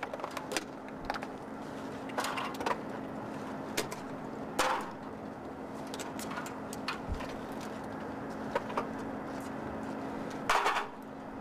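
A steady hum holding one pitch, with scattered clicks and rustles of a flight helmet and oxygen mask being pulled on and adjusted in a fighter cockpit. Brief louder rushes of noise come about two, four and a half, and ten and a half seconds in.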